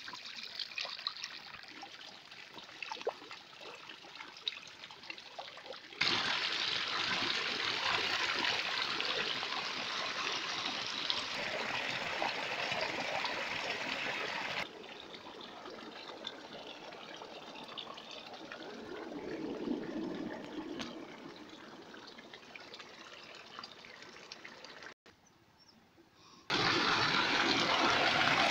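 Muddy mineral-wash wastewater running and trickling over mud into a dirt channel. The flow noise steps up about six seconds in, falls back about halfway through, and after a short quiet gap near the end comes back loud.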